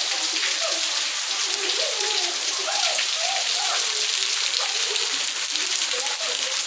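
Steady rain falling, an even hiss of rain on surfaces, with faint voices in the background.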